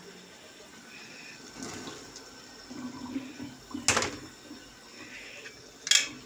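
Wet, rinsed eggplant cubes tipped out of a plastic colander into a cooking pot, with water splashing and draining, then two sharp knocks of kitchenware about four and six seconds in.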